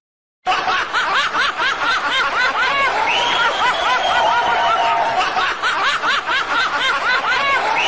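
Very high-pitched laughter, quick repeated giggles, dubbed on as a comic sound effect. It starts about half a second in.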